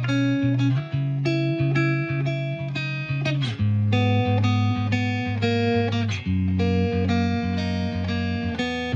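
Background music: plucked guitar playing a melody over held bass notes.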